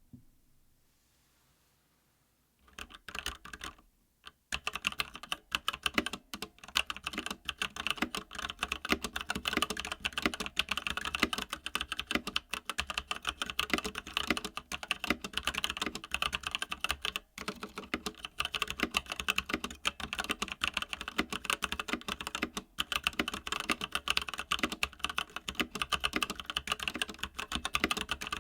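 Keys of a Keychron C1 wired mechanical keyboard being typed on in quick, continuous clicks. They start after a couple of seconds of near quiet, with a short burst of keystrokes first.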